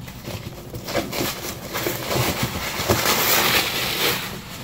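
Paper wrapping being pulled and crumpled off a cardboard doll box, a dense run of crinkling and rustling crackles.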